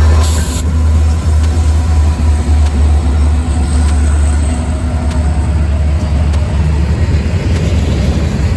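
Norfolk Southern freight train rolling past at speed, a steady, heavy low rumble.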